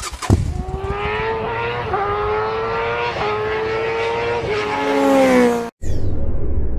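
Racing motorcycle engine accelerating hard, its pitch climbing and dropping back at several upshifts, then falling near the end before it cuts off abruptly. A low rumble follows.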